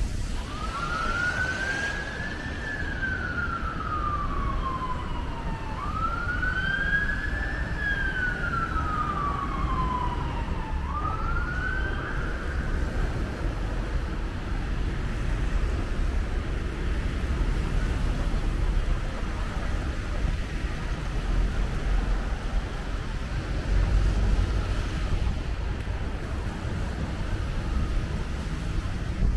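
An emergency vehicle's siren sounding a slow wail: three rise-and-fall sweeps about five seconds each. The third is cut short and fades out about twelve seconds in, leaving a steady rumble of city traffic.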